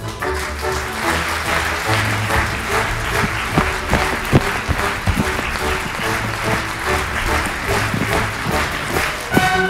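Audience applauding over the orchestra playing the curtain-call music of an operetta. The music stands out more clearly near the end.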